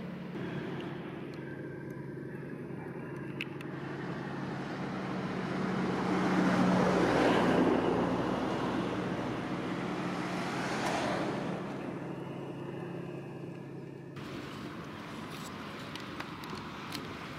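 Steady low diesel engine drone from a tug towing a barge. Two swelling and fading surges of passing-vehicle noise peak about seven and eleven seconds in, the first the loudest. The drone stops abruptly about fourteen seconds in.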